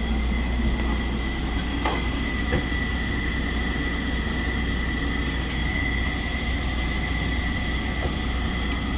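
Commercial kitchen exhaust hood fan running, a steady low hum with a steady high whine over it, and a few light clicks.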